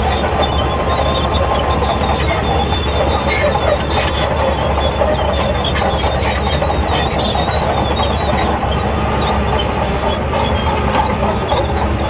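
Crawler bulldozer at work: its diesel engine runs steadily while the steel tracks clank and rattle with frequent short knocks.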